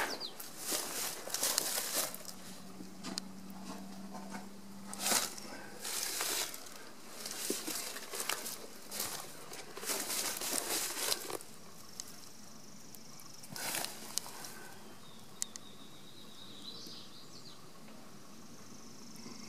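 Footsteps crunching on dry pine-straw mulch, an irregular run of steps that stops about eleven seconds in.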